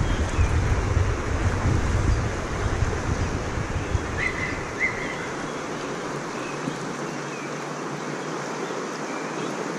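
Fast-flowing river rushing over a stony bed in a steady wash of noise. Wind buffets the microphone with a low rumble that drops away about five seconds in.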